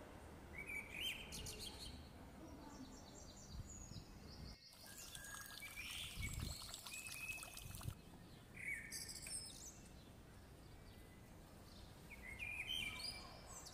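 Faint bird chirps, short high calls coming now and then, over a low, even street background hum.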